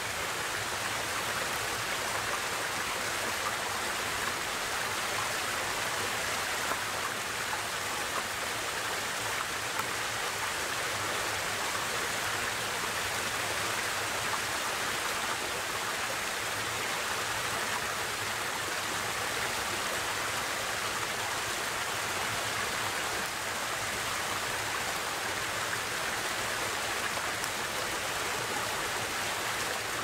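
Small woodland waterfall splashing over rocks into a stream, a steady rush of water.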